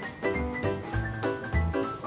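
Background music: a bouncy tune of short repeated chords over a bass line with light percussion.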